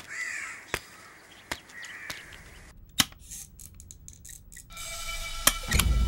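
Crows cawing a couple of times, with a few sharp clicks. After a short break, low music with a deep bass swells in near the end.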